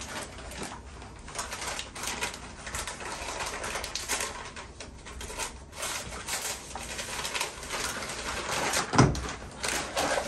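Paper wrapping and a shopping bag rustling and crinkling as wrapped items are pulled out of the bag and unwrapped, with a heavier thump about nine seconds in.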